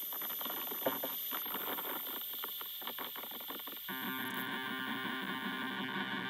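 Experimental noise music: dense crackling clicks over a steady high whistling tone, with a layered drone of several held tones coming in about four seconds in.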